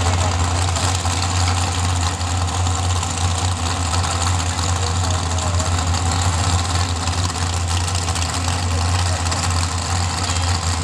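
Mud drag trucks' engines idling, a steady low rumble with no revving or launch.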